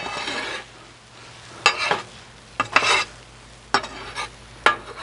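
Two metal spatulas scraping and pushing across the steel top of a Blackstone gas griddle in short strokes, about six in all, over the faint sizzle of eggs frying in bacon grease.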